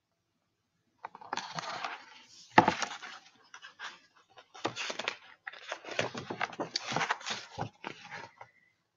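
Rustling and handling noise of a hardcover picture book having its pages turned, starting about a second in, with a sharp knock about two and a half seconds in.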